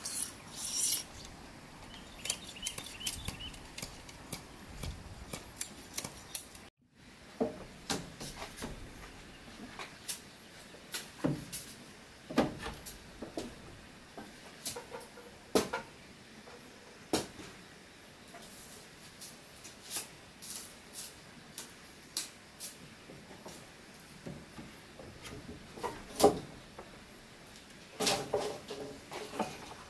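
Scattered sharp clicks and light knocks at irregular intervals, several a second at times, over a faint background hiss, with a brief moment of total silence about seven seconds in.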